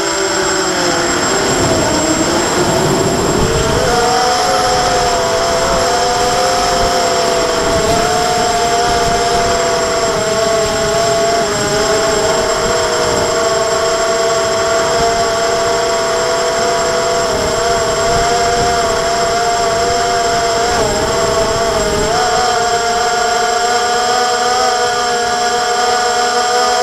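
Motors and propellers of an RCTimer Argonaut hexacopter whining as heard through its onboard camera. The pitch sags over the first couple of seconds, then climbs back and holds steady. A rushing air noise underneath eases about 22 seconds in.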